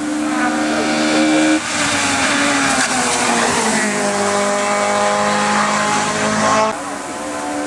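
Race car engine running at high revs, its pitch held fairly steady, then stepping down about a second and a half in and again about four seconds in. The sound changes abruptly near the end.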